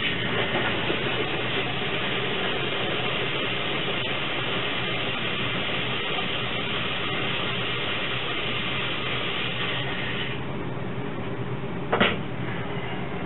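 Tap water running steadily through a faucet-mounted carbon filter into a container, with an even hiss that drops off about ten seconds in. A single knock follows about twelve seconds in.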